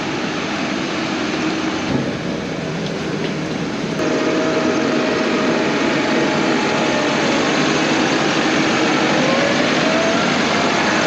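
Case IH tractor's diesel engine running as it tows a grain cart, getting louder about four seconds in.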